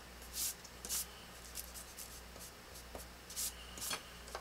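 A rubber eraser rubbing on drafting paper in five or six short, scratchy strokes, spaced about half a second to a second apart, taking out a pencil line.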